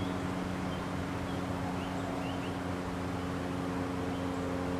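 Steady low mechanical hum with a constant drone.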